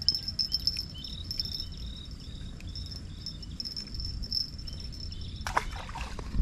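Insects droning steadily at a high pitch, with a run of short chirps about twice a second, and a brief rustle with clicks near the end.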